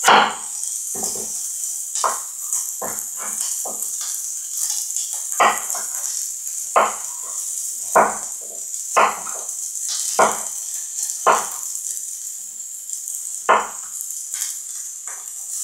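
Chef's knife chopping zucchini on a wooden cutting board: sharp knocks at an uneven pace, roughly one a second. Under them runs the steady high hiss of diced vegetables sizzling in a frying pan.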